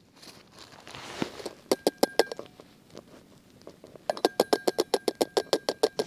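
Small hard clicks from an AeroPress coffee maker being handled and fitted together: a short cluster about two seconds in, then a steady run of about ten clicks a second near the end.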